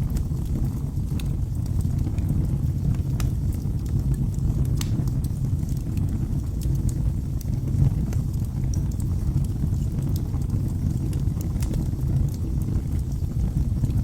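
Wood fire burning in a fireplace: a steady low rumble with scattered, irregular sharp crackles and pops.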